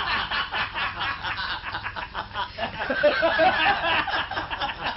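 Audience laughing at a joke's punchline, many people at once.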